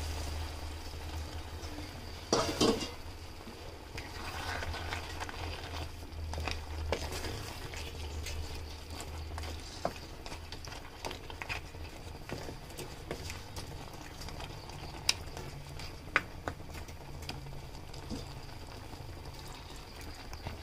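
Water poured into a pan of crab curry, then a wooden spatula stirring the simmering gravy, with scraping and a few sharp knocks against the pan.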